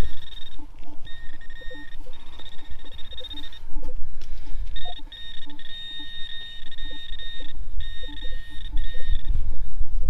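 Garrett pro-pointer pinpointer sounding a steady high-pitched tone that cuts in and out in stretches of a second or more as it is pushed through the soil in the hole, signalling that the buried coin is close by. Low scraping and rustling of soil and grass under the tone.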